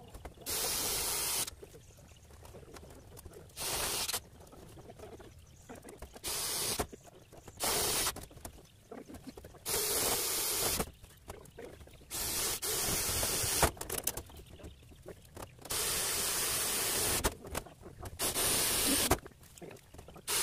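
Cordless drill driving screws through the black sheeting into the cage's steel frame, in about ten short bursts of around a second each with pauses between.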